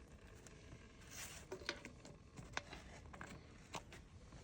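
Faint scattered clicks and a brief rustle as the hydraulic coupler parts are handled.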